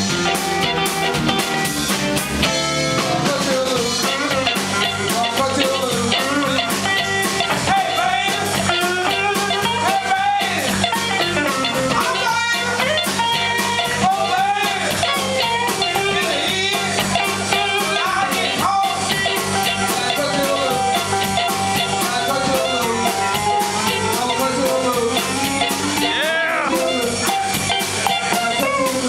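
Live blues band playing: a woman singing lead over electric guitar, bass and drums.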